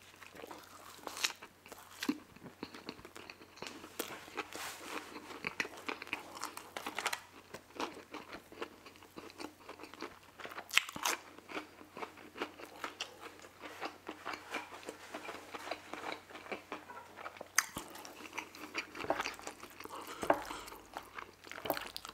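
Close-miked eating of crispy fried food, a fried chicken sandwich and onion rings: irregular crunchy bites and chewing throughout.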